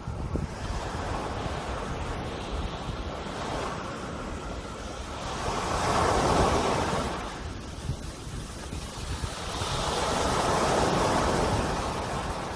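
Sea waves surging in and washing out, with two swells, the louder one about six seconds in and another around eleven seconds, over a steady low rumble of wind on the microphone.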